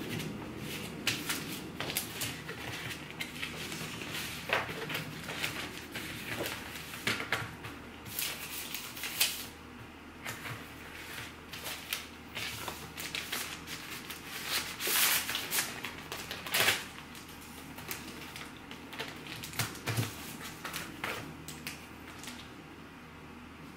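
Crinkling plastic cello bag and rustling paper mailer being handled and folded while a sticker order is packed, in irregular crackles and light taps, the sharpest about eight seconds in and again around fifteen to seventeen seconds in.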